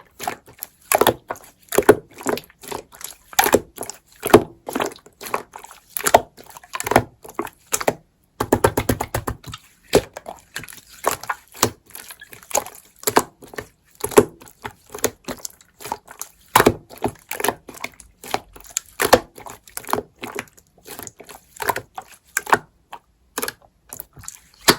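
Slime being pressed and squeezed by hand, making a stream of irregular short squelches and pops, with a quick run of rapid crackling pops about nine seconds in.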